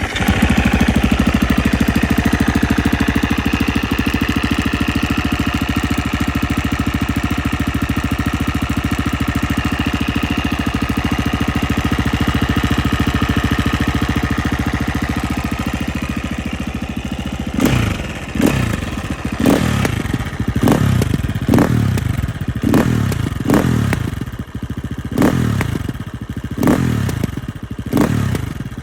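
Husqvarna FE 350 four-stroke single-cylinder enduro engine idling steadily through its exhaust just after starting. A little past halfway it is revved in a quick series of short throttle blips, each rising and falling, about one every 0.7 seconds.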